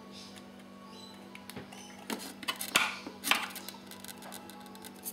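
Small plastic clicks and short rustles of hands handling a lead and plugging it into an RC receiver, bunched together around the middle, over a steady faint hum.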